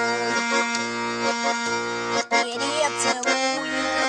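Garmon (Russian button accordion) playing sustained melody notes and chords over a steady bass, about one bass note a second. A man's singing voice comes back in near the end.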